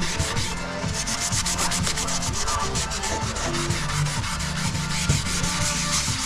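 500-grit sandpaper rubbing over cured body filler on a car quarter panel in quick, even back-and-forth strokes, cutting out the deeper scratches before primer.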